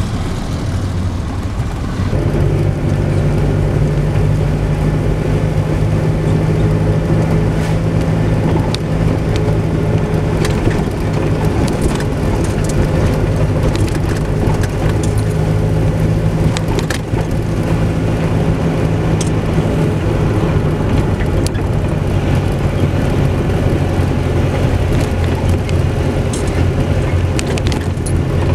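Engine of the vehicle carrying the camera running steadily while driving along the road, a low even drone that settles in about two seconds in, with a hiss of road and wind noise.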